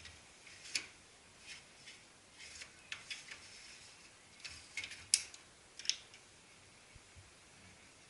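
Light plastic clicks and short scrapes from copier parts being handled during a drum unit change, about a dozen scattered sounds with the sharpest click about five seconds in.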